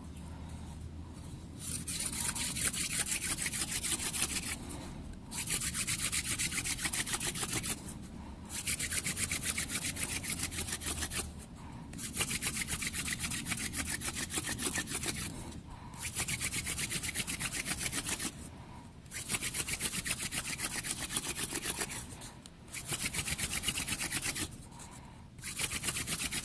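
Mullein hand-drill spindle spun between the palms and grinding into a cedar hearth board: a dry rasping friction in about eight bouts of two to four seconds each, with short pauses between them, as heat and wood dust build up for an ember.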